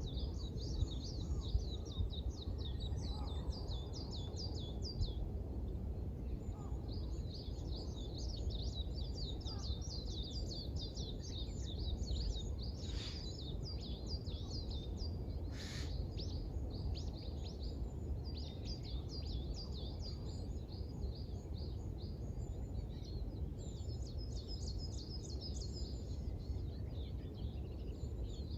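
Small birds singing at sunrise: rapid high chirps in dense bouts, pausing briefly and starting again, over a steady low rumble of background noise. Two short hisses come near the middle.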